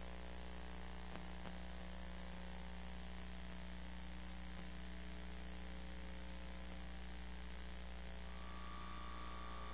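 Steady electrical hum and hiss from VHS tape playback over the blank stretch before the programme starts. There are two faint clicks about a second in, and a faint steady high tone joins near the end.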